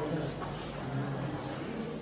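Indistinct, faint voices over steady room noise.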